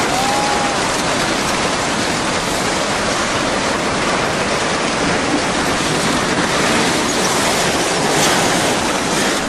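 Steady rushing of tsunami floodwater, a dense, even noise with no pauses. A brief thin tone sounds about half a second in.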